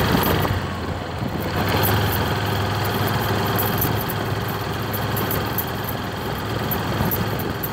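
Motorcycle engine running steadily, with a low hum and a broad noise haze.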